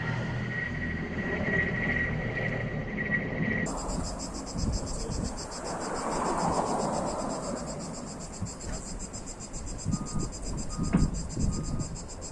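Cicadas buzzing in a dense, rapidly pulsing high-pitched chorus that cuts in suddenly about four seconds in, after a low rumble with a steady high whine. A few short thin chirps sound near the end.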